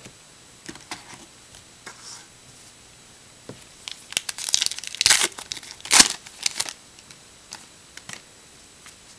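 A trading card pack's wrapper being handled and torn open: a few light crinkles at first, then a stretch of dense crinkling and tearing in the middle, with the loudest rip about six seconds in.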